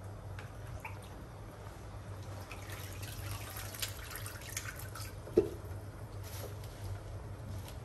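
Wet lettuce leaves being lifted out of a bowl of water and packed into a stainless steel pot: water dripping and splashing back into the bowl, with leaves rustling. One short ringing knock about five seconds in is the loudest sound.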